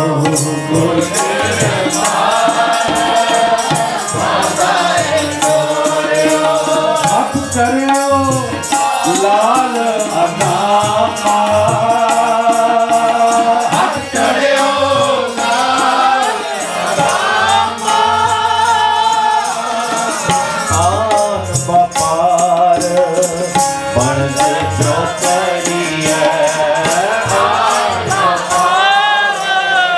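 Sikh kirtan: men singing a Gurbani hymn in Punjabi with harmonium accompaniment and tabla keeping a steady rhythm.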